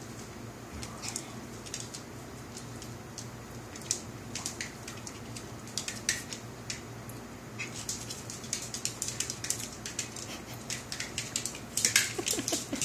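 Yorkshire terrier puppies' claws clicking and skittering on a tile floor as they scramble in play: scattered ticks at first, then a fast, dense patter in the second half, loudest near the end.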